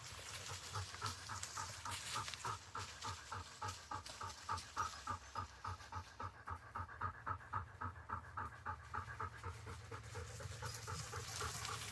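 Labrador retriever panting rapidly and steadily close by, about three to four breaths a second.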